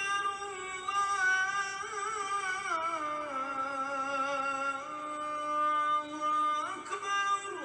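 Music with a voice singing long held notes that slide down in pitch about three seconds in and rise again near the end.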